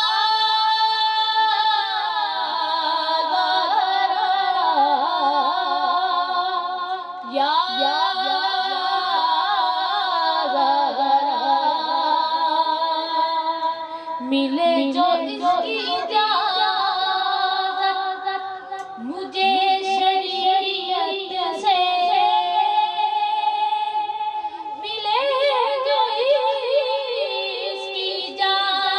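A boy singing a naat, an Urdu devotional song in praise of the Prophet, without instruments, in long held notes with wavering ornaments, in several long phrases.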